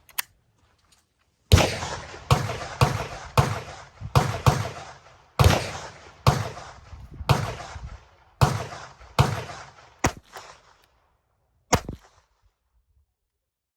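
Glock 44 .22 LR pistol fired in a string of about ten shots at an uneven pace over some eight seconds, each shot ringing out briefly. Two fainter sharp cracks follow after the string.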